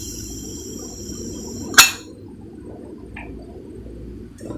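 Steam hiss from an aluminium pressure cooker's vent, with its whistle weight lifted off, fading away, then a single sharp metallic clink with a short ring about two seconds in.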